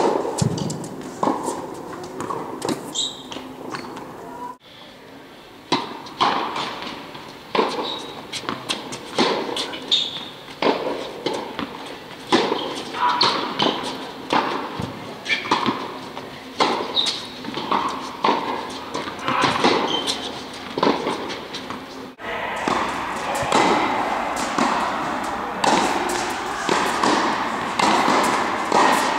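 Tennis balls struck by rackets and bouncing on an indoor court: a string of sharp pops and thuds echoing in a large hall. The sound changes abruptly twice, at about four and a half seconds and near twenty-two seconds.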